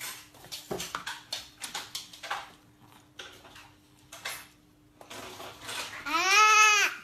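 Plastic fork clicking and scraping against a plastic plate in quick, irregular taps. About six seconds in, a toddler gives a loud drawn-out 'aah' that rises and then falls in pitch.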